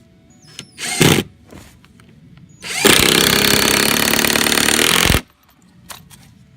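Power drill driving a screw into a wooden batten: a short burst about a second in, then a steady run of about two and a half seconds that stops abruptly.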